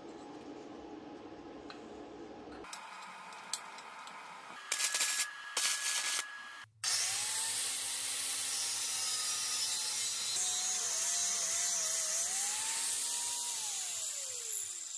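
Angle grinder grinding a steel square-tubing fixture, a steady harsh hiss with the motor's pitch wavering as it is pressed on. Near the end the pitch falls away as the grinder spins down. It is preceded by short, louder bursts about five seconds in.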